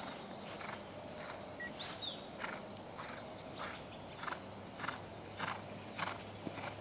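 Horse cantering on a sand arena: soft, regular hoofbeats, about one stride every half second or so.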